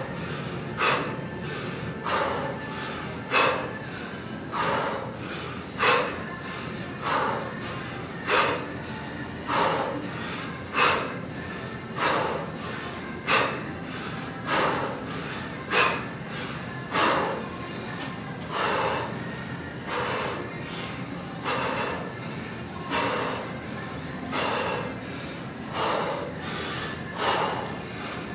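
A man's sharp, forceful breaths through nose and mouth, in time with repeated one-arm kettlebell snatches: a loud burst about every second and a quarter, each followed by a softer one, keeping a steady rhythm throughout.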